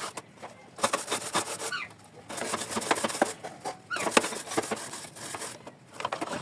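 Brush scrubbing and clattering on a grill machine's plate, in irregular scratchy bursts, with a few short bird calls in the background.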